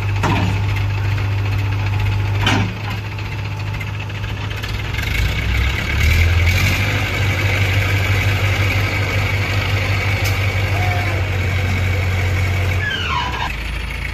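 JCB 3DX backhoe loader's diesel engine running steadily while its hydraulic arm lowers a large concrete pipe on a sling, getting louder about 6 s in as the load comes on. Sharp metallic knocks just after the start and about 2.5 s in.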